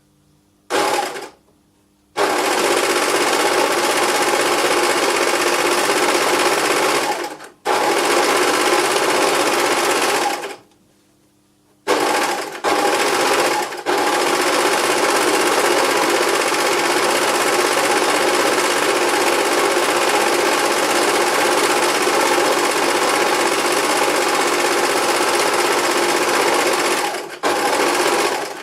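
Electric sewing machine running at high speed in stints, stopping and starting again: a short burst about a second in, then long runs broken by brief pauses near 7.5 s, between about 10.5 and 12 s, and again just before the end.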